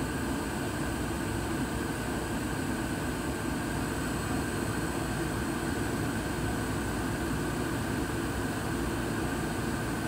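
ICP Comfortmaker gas furnace running steadily, its burners lit and its fans turning. It is still on low fire: by the technician's reading, the two-stage gas valve is not shifting into high stage.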